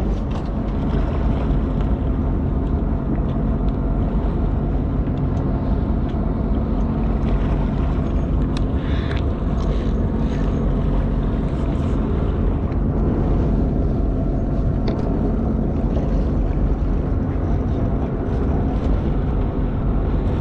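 A boat's engine running steadily, a constant low hum, with a few faint brief clicks.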